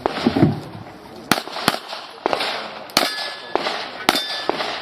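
Handgun shots fired in a quick string, about eight in under five seconds, with metallic clangs and brief ringing as steel targets are hit.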